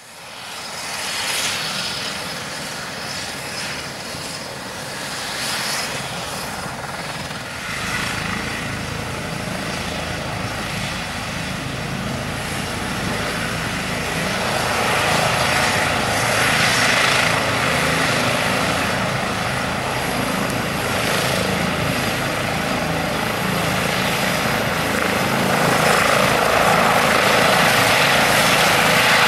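Eurocopter EC135 helicopter running on the ground ahead of lift-off. Its twin turbines whine and the main rotor and Fenestron tail rotor turn, growing steadily louder as it runs up.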